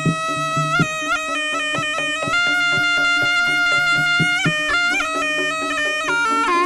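Live jaranan music: a shrill, reedy slompret (Javanese double-reed trumpet) playing a stepping melody over regular kendang drum strokes.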